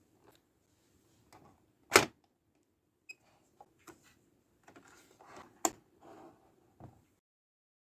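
Plastic toy pieces being handled: a scatter of small clicks and taps with light rustling, two of them sharp and loud, about two seconds in and again near six seconds. The sound cuts off suddenly about seven seconds in.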